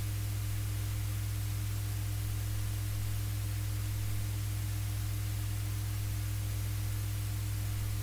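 Steady low electrical hum with a faint buzz of overtones and an even hiss. It is the recording chain's own noise floor, with no other events.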